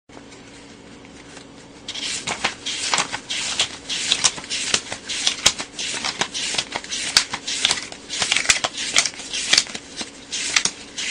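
Paper banknotes, US dollar bills, being counted by hand: the stack is bent into a curve and the bills are flicked over one by one, each with a crisp papery snap. The flicks start about two seconds in and run at an irregular two to three a second, over a faint steady hum.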